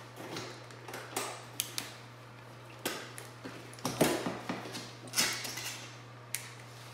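Scattered clicks, light knocks and creaks of hand tools and motorcycle parts being handled during disassembly, over a steady low hum.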